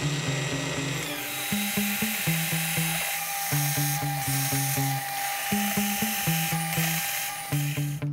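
Bosch PBD 40 bench drill press running a twist drill into a steel block, a steady cutting whine. Background music with a plucked, rhythmic bassline plays over it.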